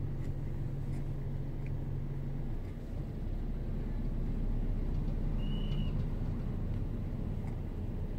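Steady low rumble of a car's engine and road noise heard inside the cabin, with a low hum that shifts about two and a half seconds in. A brief high squeak sounds about five and a half seconds in.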